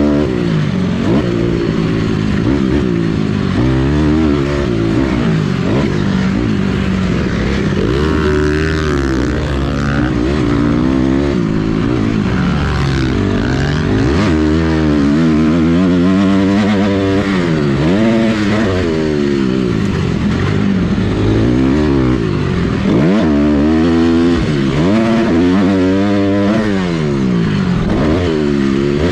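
Motocross dirt bike engine heard from on board the bike, revving up and easing off again and again, its pitch climbing and falling as the rider works the throttle and gears around the track.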